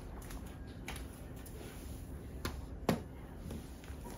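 A few light clicks and rustles of small plastic toy pieces and packaging being handled, over a steady low room hum.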